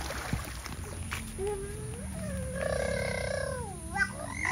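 An animal's drawn-out call, gliding up in pitch, holding a buzzy note for about a second, then dipping and rising again.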